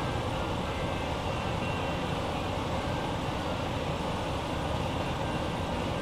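Steady mechanical noise: an even whoosh with a low rumble, unchanging throughout, like a large fan or ventilation running.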